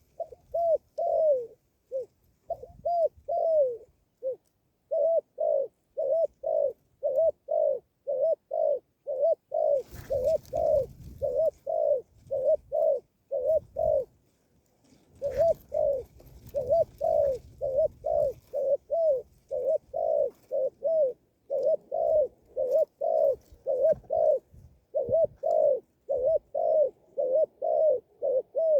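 A bird calling a long, steady run of short hooting notes that rise and fall, about two a second. Twice the notes are joined by a spell of rustling noise.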